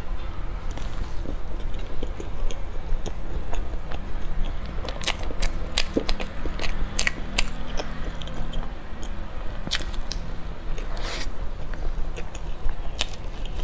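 A person eating close to the microphone: biting and chewing soft food, with scattered sharp mouth clicks and a longer crackly chew about eleven seconds in, over a steady low hum.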